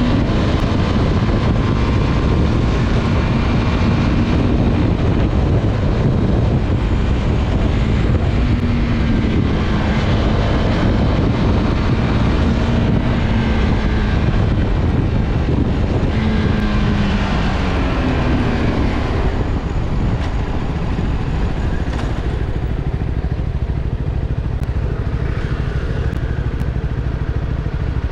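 CFMOTO 250SR's single-cylinder engine pulling through traffic, its note stepping up and down with each gear change, over heavy wind rush on the microphone. About two-thirds of the way in it eases off and settles toward idle as the bike slows to a stop.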